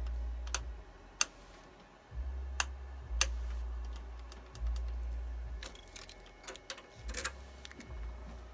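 Starter solenoid on a 2004 Suzuki GSX-R1000 clicking irregularly, about eight sharp clicks with several close together about six and seven seconds in, over a low rumble in stretches. The electrics are dimming and pulsing with a full battery, the sign of an electrical fault that stops the bike from starting.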